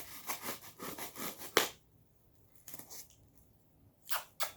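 Packaging being handled and unwrapped: about a second and a half of crinkly rustling with small crackles, ending in a sharp snap. Two short rustles follow near the end.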